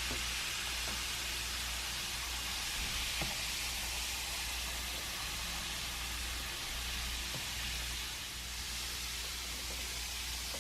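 Effervescent fizzy heart capsule fizzing as it dissolves in a container of water, a steady soft hiss with a few faint ticks of bursting bubbles.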